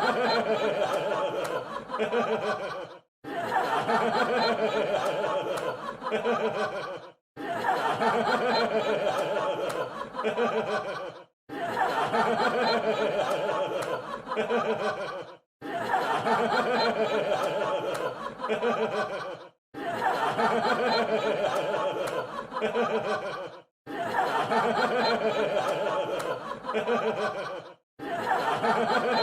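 Crowd laughing: a four-second clip of audience laughter looped over and over, each repeat cut off by a brief moment of silence.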